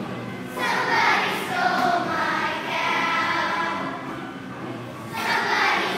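A class of second-grade children singing together as a choir, line by line, with a short gap between phrases about four to five seconds in.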